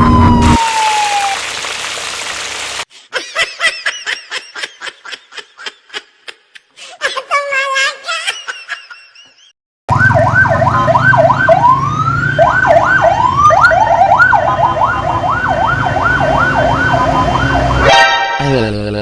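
Electronic siren wailing in rapid repeated up-and-down sweeps for about eight seconds. Before it comes a run of short quick chirping pulses, and near the end a horn-like blast that slides down in pitch.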